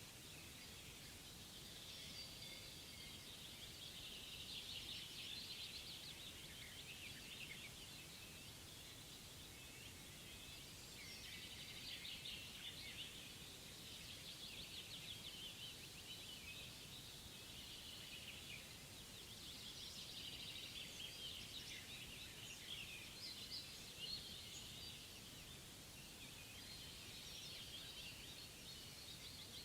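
Faint chorus of small songbirds chirping and singing continuously, with many overlapping calls.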